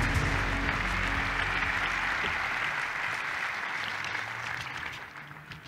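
Audience applauding, the clapping slowly dying away and falling off near the end.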